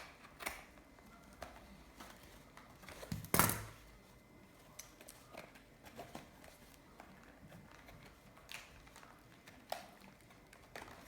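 A trading-card box and its foil card packs being handled: scattered light clicks and rustles, with one louder rustle about three and a half seconds in.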